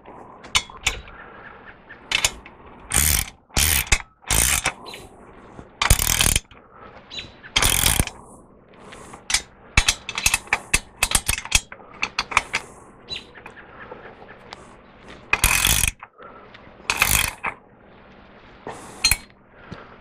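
Ratchet wrench clicking in irregular bursts of quick turns as bolts are tightened into a steel frame.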